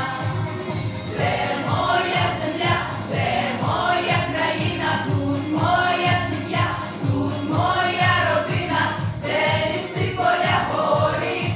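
Group of voices singing a song together over instrumental accompaniment with a steady beat.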